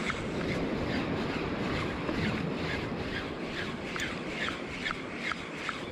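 Spinning reel being cranked steadily on a lure retrieve, a soft tick about three times a second. Under it, wind on the microphone and the sea.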